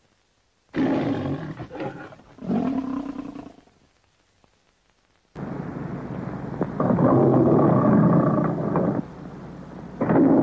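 Lion roaring on the soundtrack of the Metro-Goldwyn-Mayer cartoon logo: two roars about a second and a half apart, a pause, then a longer spell of roaring that dips near the end and comes back.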